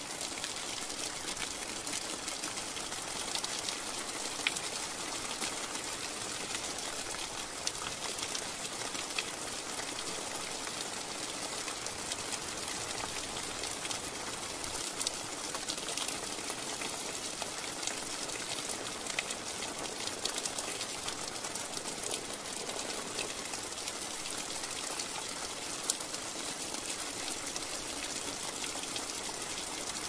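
Steady rain falling: an even hiss with scattered sharp ticks of single drops.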